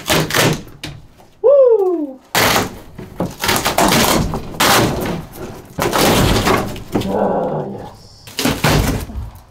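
Thin wood ceiling paneling being pried and ripped off a camper's roof in a run of cracking, splintering and tearing noises. The panels split and tear rather than coming off clean, with parts staying stuck to the surface. About one and a half seconds in there is a single short squeal that falls in pitch.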